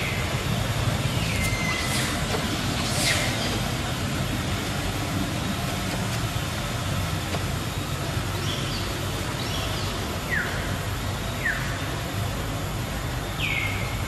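About eight short, high-pitched animal calls, several a quick falling sweep that ends on a briefly held note, scattered over a steady low rumble.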